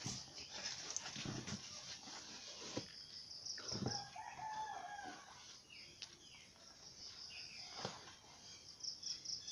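Faint rustles and taps of a cardboard box and plastic packaging being handled. About three and a half seconds in a drawn-out animal call with a rising start sounds for about a second, and short high chirps come in twice.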